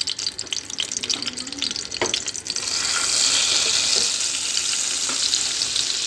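Butter frying in hot oil in a pan: a crackling sizzle, a single knock about two seconds in, then a louder, steadier sizzle from about two and a half seconds in.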